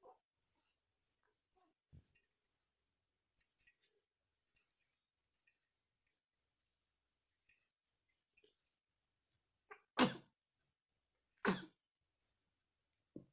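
Baby sneezing twice: two short, loud sneezes about ten seconds in and again a second and a half later. A few faint small clicks come before them.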